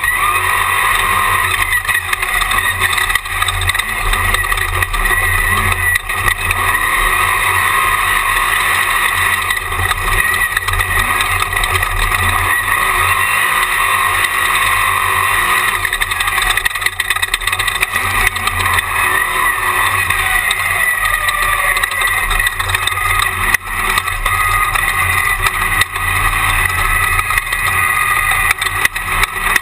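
Jimco Class 1 desert race buggy driving at speed, heard from its on-board camera: loud, steady engine and driving noise with no break.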